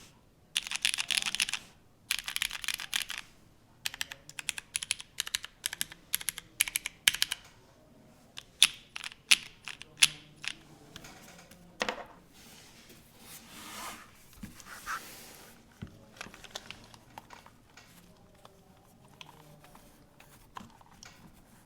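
Mechanical keyboard with lubed Cherry MX Brown tactile switches on an aluminium plate in a gasket-mount ai03 Vega, typed on: two fast runs of keystrokes, then separate key presses that thin out over the second half. A soft rushing noise swells up for a couple of seconds just past the middle.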